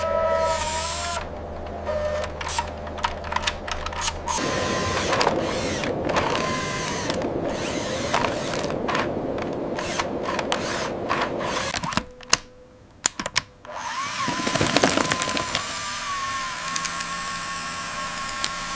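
Mechanical whirring like a small power tool, with a quick run of sharp clicks and knocks through the middle and a brief near-silent gap near the end.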